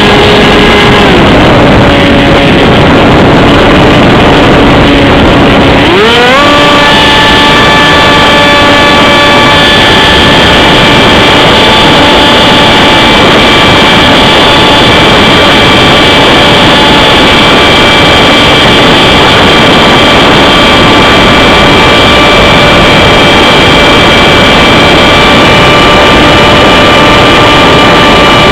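Onboard audio of an AXN Floater-Jet RC model plane's electric motor and propeller whining in flight, over heavy wind noise on the camera microphone. The pitch drops about a second in as the throttle comes back, then rises sharply near six seconds as it is opened up again, and holds steady.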